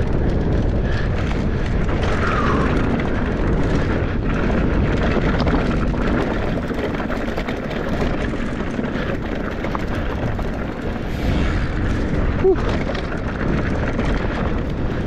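Mountain bike rolling fast down a dirt trail: steady wind rush on the action camera's microphone mixed with tyre rumble and rattle over the ground, with a short knock near the end.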